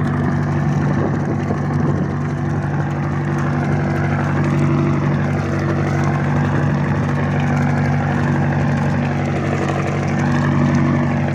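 Engine on a boat running at a steady speed, a constant, even hum.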